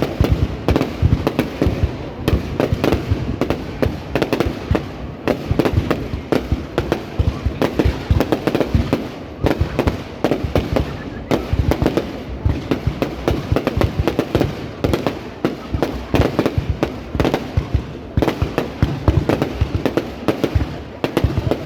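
Fireworks display: a continuous barrage of rapid, overlapping bangs, several a second, without a break.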